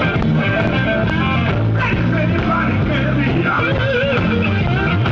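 Electric blues band playing live and loud, with electric guitar over bass and keyboards.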